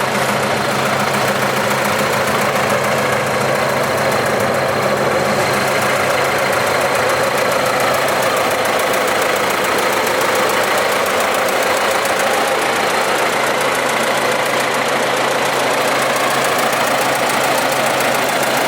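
An engine running steadily without a break, most likely the stuck machine or a vehicle working to free it.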